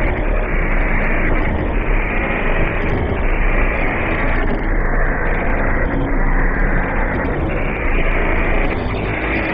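Loud, continuous harsh noise with a deep rumble and no clear pitch: a clip's soundtrack mangled by a video editor's distortion effect.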